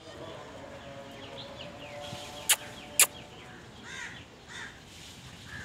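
Outdoor ambience with birds chirping, two sharp clicks about half a second apart midway through, then two short animal calls.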